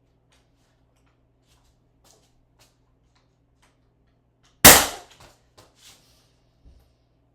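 A Ramset powder-actuated nail gun firing once: a single sharp bang a little past halfway, followed by a few small knocks, with faint clicks of handling before it.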